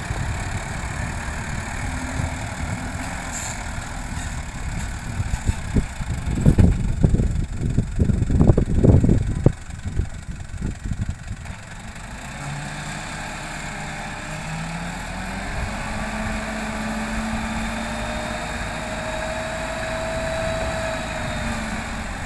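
Toyota Dyna dump truck's engine running, with louder uneven rumbling in the first half. From about halfway the engine holds a steady, higher speed and a slowly rising whine joins it as the hydraulic hoist tips the loaded bed.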